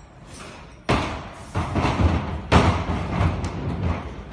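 Plastic lid being set onto a folding plastic pallet sleeve box. There is a sudden heavy thud about a second in, then more thumps as the lid is pushed into place.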